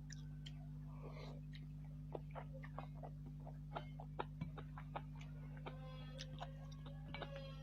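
Close-miked mouth sounds of eating chicken noodles: irregular wet clicks and smacks of chewing, over a steady low electrical hum. A faint held tone comes in about six seconds in.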